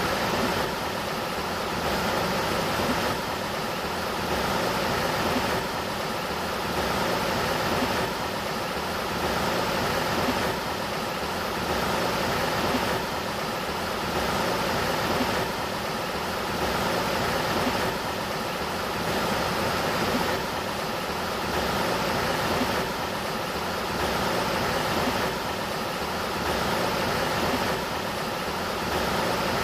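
Sacramento River flowing: a steady rush of water with a gentle swell every two seconds or so.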